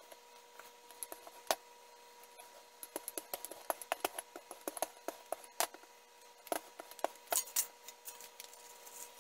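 Scattered light clicks and knocks of a wooden rolling pin and a glass bowl being handled on a stainless-steel counter, thickest about three to five seconds in and again around seven seconds. A faint steady hum sits underneath.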